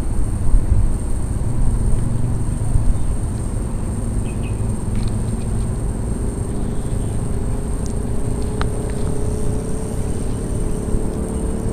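Outdoor ambience: a steady low rumble, gusty at first, with a distant engine hum slowly rising in pitch from about halfway through and a few faint bird chirps.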